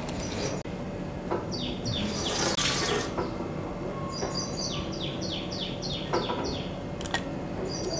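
A bird calling two quick runs of short, falling chirps, the second run longer, about eight notes. Between them comes a brief scraping, a metal ice cream scoop dragged through frozen ice cream.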